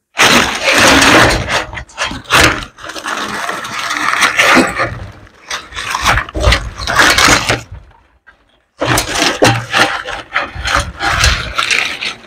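Dry, brittle leaf wrappings crackling and rustling loudly as they are pulled and peeled off by hand, in a run of sharp crackles; it stops for under a second about two-thirds of the way in, then starts again.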